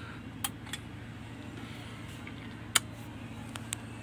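A few short sharp clicks as a Harman Kardon AVR70 AV receiver is switched on at its front-panel power button, the loudest about three seconds in, over a steady low hum.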